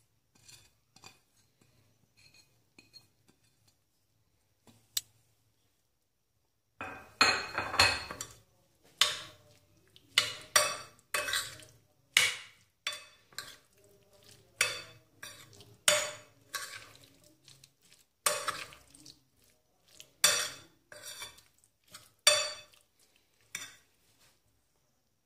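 A metal spoon clinking and scraping against a glass bowl as it stirs a wet mix of chopped tomato, onion, chilli and mint, stroke after stroke about once or twice a second. The first few seconds hold only a few faint taps before the stirring starts.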